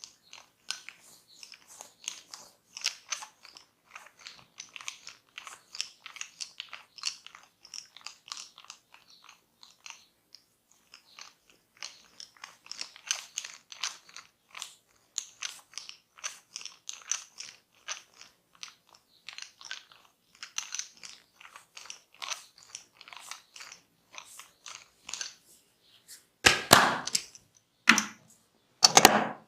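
Close-up crisp crackling of a barber's hands rubbing and scratching during a massage, in quick irregular strokes, then three much louder, fuller sounds in the last three seconds.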